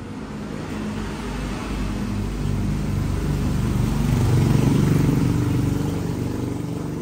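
A motor vehicle's engine passing by, growing louder to a peak about four to five seconds in, then fading away.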